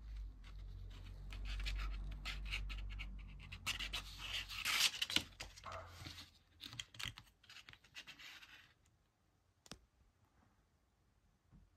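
Irregular scratching and rubbing with a quick run of sharp clicks, busiest about halfway through, dying away about nine seconds in, with one more click after.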